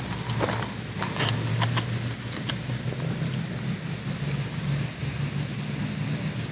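A steady low hum, with a few light metallic clicks and rattles in the first three seconds or so from a lip-grip fish scale being handled.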